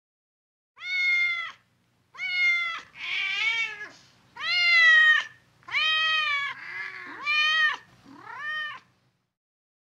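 Cat meowing repeatedly: about eight separate meows, each under a second and rising then falling in pitch, a few of them rougher and lower.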